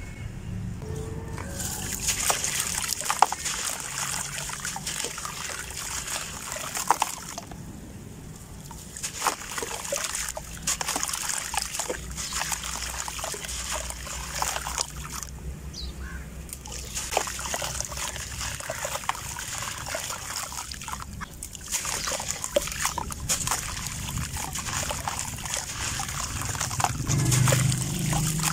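Gritty dry blocks crumbled by hand into a bucket of water: a crunchy crumbling, with grit and lumps falling and splashing into the water. It comes in bursts with a few short pauses.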